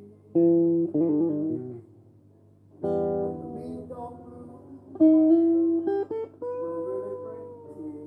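Electric guitar played alone with no backing: short phrases of single picked notes with bends and vibrato. A pause of about a second falls in the middle, then a longer phrase ends on a held, bent note.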